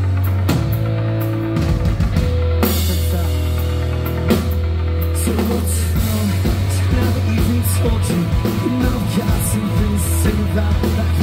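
Rock band playing live through a PA, in an instrumental stretch without vocals: drum kit with cymbal crashes, electric guitars and a heavy, sustained bass line.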